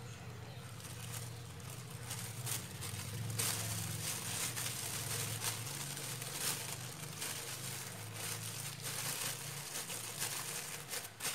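Thin plastic bag crinkling and rustling in irregular bursts as it is handled around a banana being sliced inside it with a knife.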